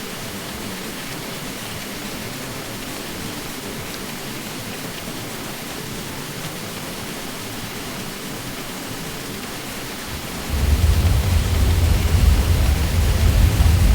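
Ceiling fan noise: a steady, even hiss. About ten seconds in, a deep low hum joins and it grows noticeably louder.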